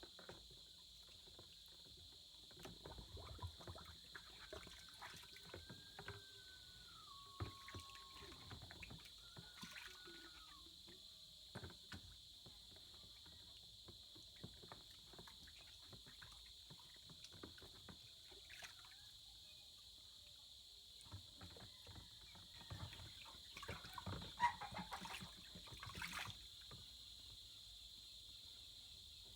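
Near silence: faint scattered clicks and knocks of feeding-bottle parts and cleaning gear being handled, louder for a moment a little before the end, over a steady high-pitched hiss.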